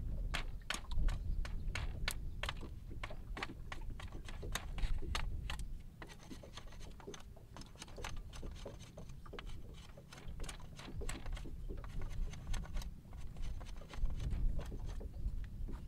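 A large knife chopping and shaving a thin wooden pole held upright, giving a run of quick, sharp knocks and scrapes at an uneven pace.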